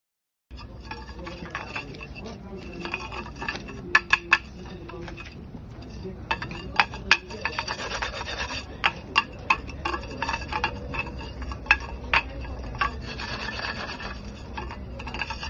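Sawdust charcoal briquettes rubbed against each other, a continuous dry scraping broken by many sharp clinks where they knock together.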